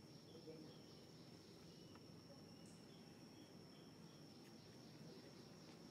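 Faint insect ambience: a steady high-pitched drone, with a short chirp repeating about twice a second.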